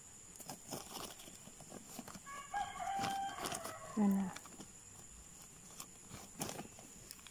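A rooster crowing once, a drawn-out call of a little over a second that holds its pitch and then drops, about two and a half seconds in. Faint clicks and rustles of hands working soil in plastic seedling bags can be heard around it.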